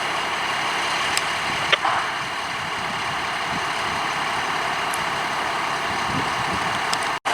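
Fire engine idling with a steady, even rumble and hiss, with a few faint ticks. The sound cuts off suddenly near the end.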